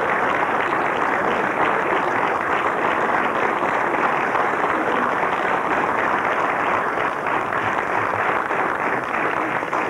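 Audience applauding: many hands clapping at once in a dense, steady wash.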